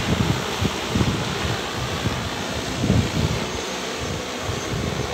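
Large multi-rotor spray drone hovering overhead, its rotors giving a steady droning hum. Irregular gusts of wind buffet the microphone and are the loudest part.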